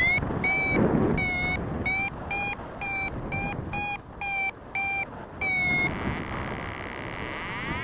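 Paragliding variometer beeping rapidly, about three short beeps a second and edging up in pitch, the sign of climbing in lift; the beeps end in a longer tone about six seconds in and stop. Wind rumble underneath.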